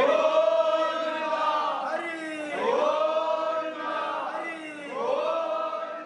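Men's voices chanting in long drawn-out phrases that rise and fall, a new phrase starting about every two and a half seconds.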